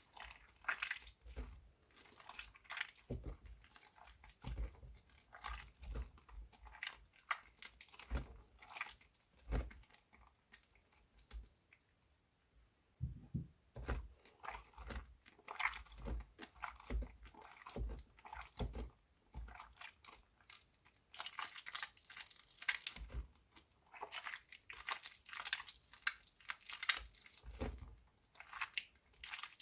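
Soaked glycerin soap plates being worked by hand: irregular crisp crunches and crackles, with a quieter lull near the middle and denser crackling toward the end.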